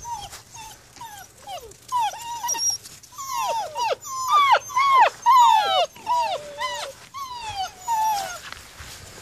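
A litter of 40-day-old German Shepherd puppies whining, a quick series of short high cries that each fall in pitch, sometimes two at once. The cries are loudest in the middle and thin out near the end.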